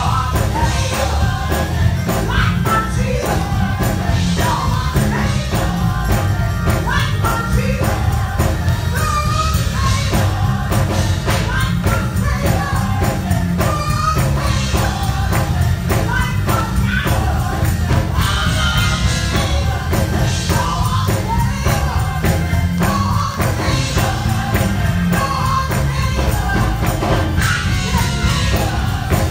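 Live gospel song: a woman's solo voice sung into a microphone, with a loud accompaniment heavy in the bass and a steady percussive beat.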